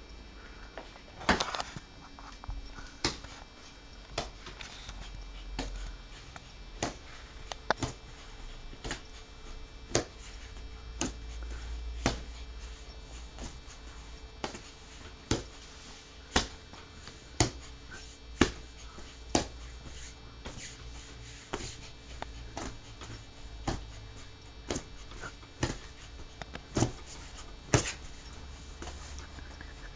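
Sharp clicks and taps, irregular and roughly one a second, as a person and a bichon frise play with a toy ball, over a faint steady hum.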